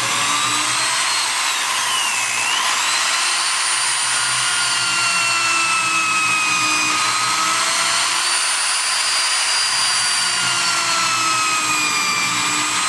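Power drill running continuously into wood. Its motor whine dips in pitch as it bogs down about two seconds in, then climbs back and holds, wavering slightly.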